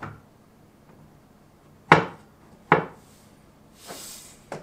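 Sharp knocks of an amplifier's loosened metal top panel being worked by hand against the chassis: two knocks close together, a brief scrape, then another knock near the end.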